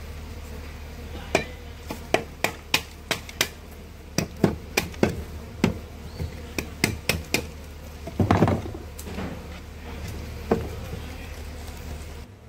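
Sharp knocks on a wooden stingless-bee hive box, about three a second for some six seconds, then a short crunch and one last knock: the small wooden ridge at the back of the box is being broken out so that a box of thicker boards will fit onto it.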